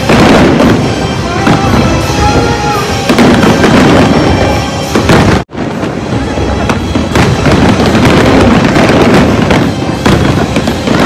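Fireworks display at full intensity: a dense, continuous crackle of many shell bursts and bangs, with music underneath. The sound drops out abruptly about halfway through, then the crackle and bursts pick up again.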